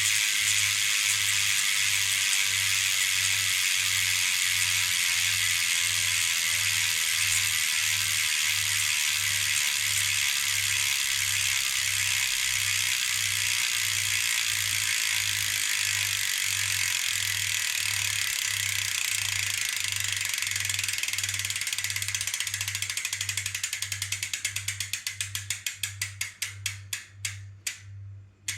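Hope Pro 4 rear hub freehub buzzing as the wheel coasts freely, the pawls ratcheting in a fast continuous whir. Over the last few seconds the clicks slow and spread into separate ticks as the wheel spins down to a stop.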